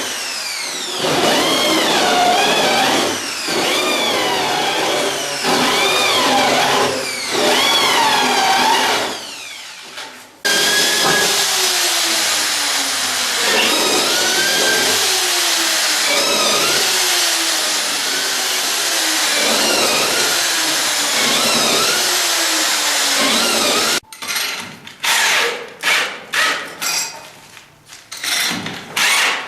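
Cordless drill/driver motor running in spurts, its pitch rising and falling, then a long run in which the pitch keeps dropping as the tool loads up, ending in a string of short trigger bursts. It is tightening the adjustable-floor anchor fasteners with a special key.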